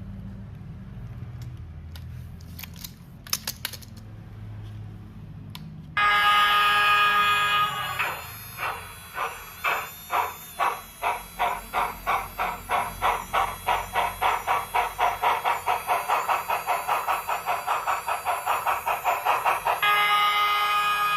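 Steam sound effects from a model Union Pacific Big Boy locomotive. A low rumble with a few clicks, then a sudden chime-whistle blast about six seconds in. Steam exhaust chuffs follow, starting slowly and quickening steadily, and the whistle sounds again near the end.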